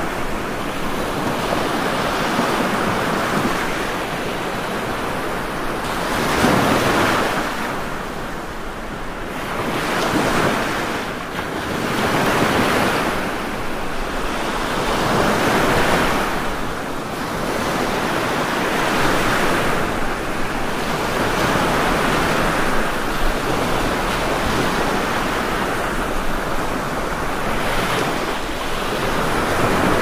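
Rushing water: a dense, steady hiss that swells and eases every few seconds.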